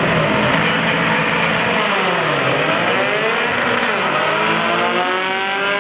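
Two Volkswagen drag cars, a Karmann Ghia among them, running loud at the start line and launching down the strip. The engine pitch holds, dips about two seconds in, then climbs steadily as they accelerate away.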